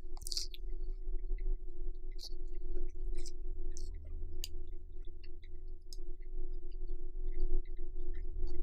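Soft chewing of a mouthful of grilled pork: small, scattered wet mouth clicks. A steady low hum runs underneath.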